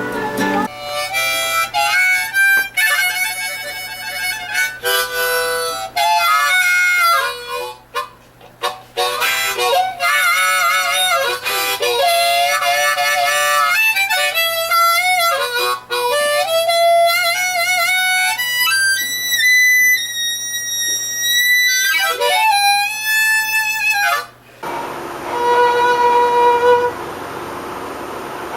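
Harmonica being played solo: a melody of bending, wavering notes with short pauses. About four seconds before the end it cuts abruptly to a steady held note from another instrument.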